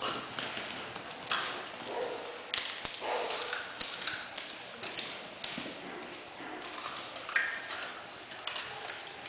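Czechoslovakian wolfdog puppies playing on a hard tiled floor: their claws click and tap irregularly on the tiles as they scramble and tussle.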